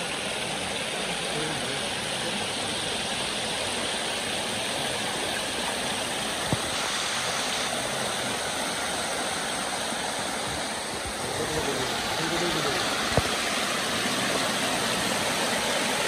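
Water rushing steadily over a concrete weir and splashing down a stony bank. Two brief sharp clicks sound about six and thirteen seconds in.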